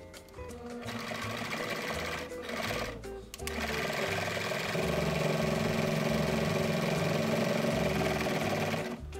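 Small electric household sewing machine running as fabric is stitched, in two stretches: a short run, a brief stop about three seconds in, then a longer, louder, steady run to near the end.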